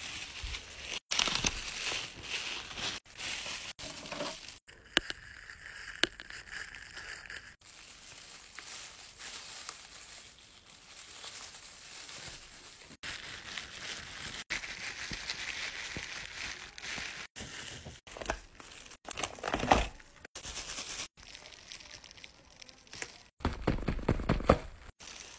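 Plastic crinkling and rustling as gloved hands handle disposable plastic gloves and plastic packaging. The sound stops and starts abruptly many times.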